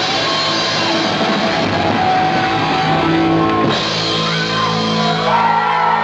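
Loud live punk rock: a band with electric guitar playing, with shouted singing over it.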